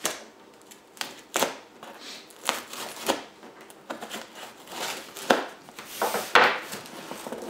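Folding knife slitting packing tape along a cardboard shipping box: irregular scraping strokes of the blade through tape and cardboard, with a few sharper, louder scrapes and knocks in the second half.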